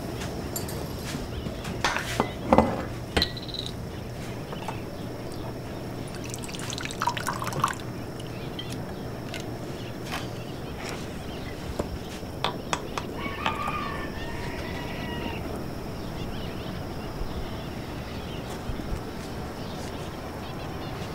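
A glass cachaça bottle is opened and the drink poured into a glass, with sharp clinks and knocks of glass in the first few seconds and again later, and liquid trickling. A short pitched bird call sounds about two-thirds of the way through, over a steady low hum.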